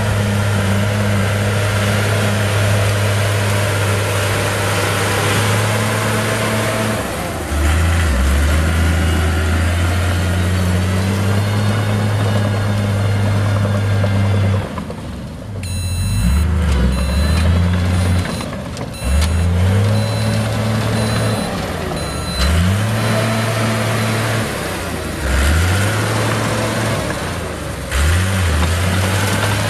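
Komatsu D37E crawler dozer's diesel engine running under load, its pitch dropping and recovering several times as it pushes dirt with the blade and moves on its tracks.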